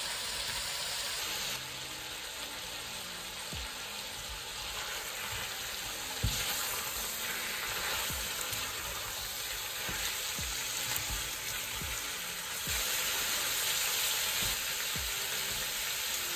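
Pieces of pork loin, garlic and sliced mushrooms sizzling steadily in olive oil in a stainless steel pot. A spatula stirs the pot, with short knocks and scrapes against it now and then.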